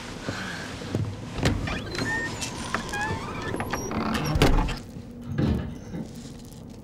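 Bags being lifted and moved about: dull thumps, the loudest about four and a half seconds in, with rustling and a few short squeaks.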